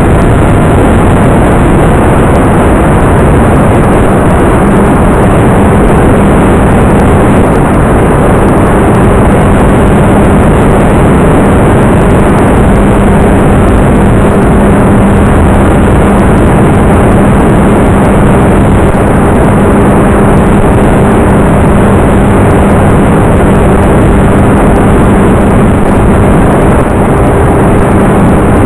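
Electric motor and propeller of a Talon FPV model plane running steadily, under loud, constant rushing noise. A steady low hum grows stronger about four and a half seconds in.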